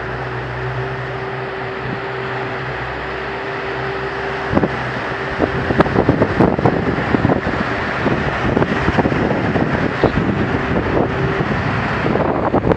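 An engine running steadily with a constant hum under wind noise on the microphone; from about five seconds in, irregular knocks and gusts break in over it.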